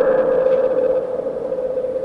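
A steady held tone, electronic in character, slowly fading in level, most likely an added sound effect.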